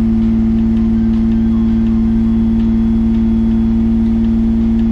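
Mazda K8 1.8-litre V6 idling fast and steady, just after a cold start with a newly fitted vane airflow sensor: the idle is too high and needs retuning.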